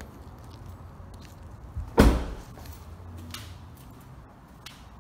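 A door shutting with a single heavy thud about two seconds in, followed by a few light clicks and faint footsteps.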